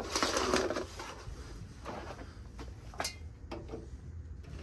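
Handling noise: a rustle in the first second, then a few scattered light clicks and knocks as objects and a wire are moved about by hand.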